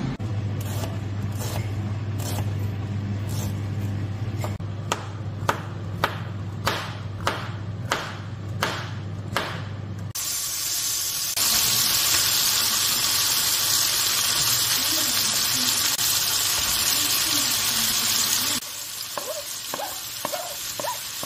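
A kitchen knife slicing through mushrooms onto a plastic chopping board, a steady run of cuts about every half second. Then sliced mushrooms, red onion, tomato and garlic sizzling in oil in a frying pan. The sizzle is loud for several seconds and drops near the end, as a wooden spatula scrapes and stirs the pan.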